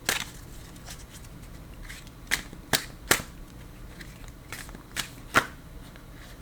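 Tarot deck being shuffled by hand: a handful of separate sharp card slaps and snaps, the loudest just after the start and around the middle.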